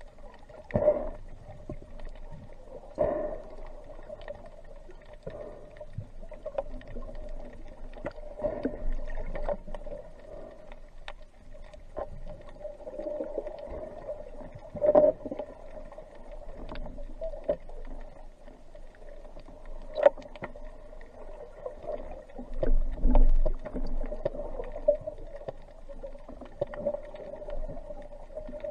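Underwater sound picked up by a diving camera: a steady hum with water swishing past in irregular surges and scattered sharp clicks.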